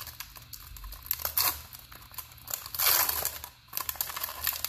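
Foil wrapper of a Pokémon trading card booster pack crinkling and tearing as it is pulled open by hand, with a louder stretch about three seconds in.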